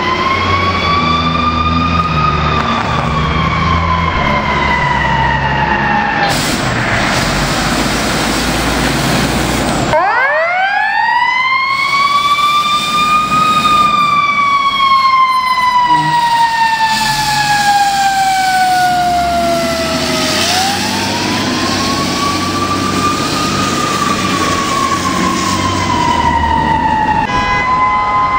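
Fire apparatus sirens, a mechanical Q siren, rising over about two seconds and then slowly falling, again and again, over the rumble of a truck's diesel engine. Near the end a steadier, more level siren tone takes over.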